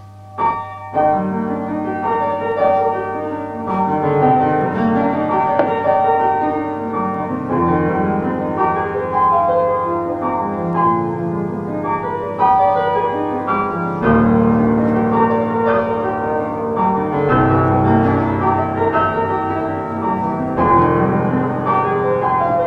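Piano music: a slow instrumental introduction of piano chords over a held bass, before a song's vocals begin.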